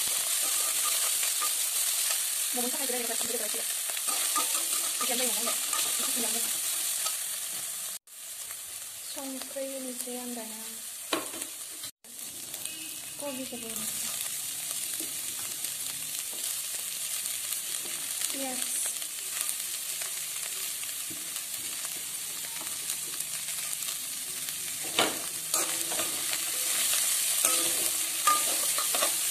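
Chopped chicken, cabbage and onion sizzling in oil in a steel wok while a metal spatula stirs and scrapes them, with a few sharp knocks of the spatula on the pan near the end. The sound drops out briefly twice.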